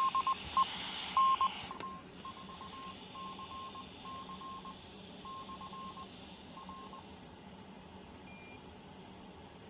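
A local repeater answering through a handheld two-way radio's speaker: a string of short and long beeps, all on one pitch, for about seven seconds over faint radio hiss, then the beeps stop. The reply shows that the handheld's transmission reached the repeater.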